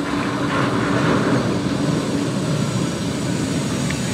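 Bombardier Flexity 2 tram pulling slowly into a stop, a steady low rumble.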